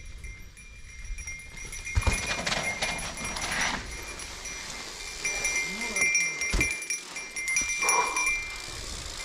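Mountain bike descending a trail: tyre and trail rumble with wind noise, and hydraulic disc brakes squealing in several bleating high-pitched bursts as the rider brakes, with a couple of hard knocks from the bike hitting bumps.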